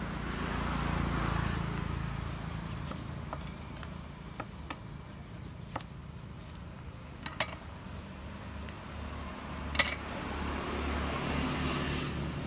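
Vehicles passing twice over a low steady hum, each swelling up and fading away, with scattered light clinks of dishes and utensils, the loudest about ten seconds in.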